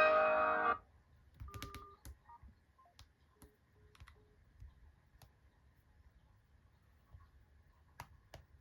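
A smartphone's ringtone melody stops abruptly just under a second in. Faint clicks and a few short, soft beeps follow; three of the beeps are alike in pitch and come in quick succession.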